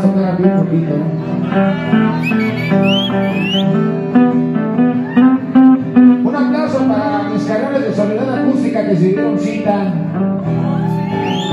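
Acoustic guitar music from an acoustic rock performance, played without sung words.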